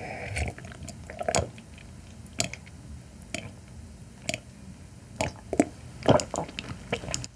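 Sips and swallows of white wine from a glass, heard up close: a series of short gulping sounds about once a second, with a few sharper mouth clicks near the end.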